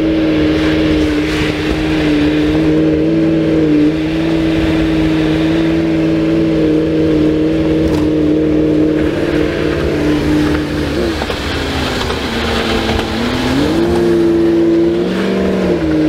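A pickup truck driving at road speed, heard from inside the cab: a steady engine drone over road and wind noise. About eleven seconds in the drone's pitch drops, then climbs back up a couple of seconds later as the truck speeds up again.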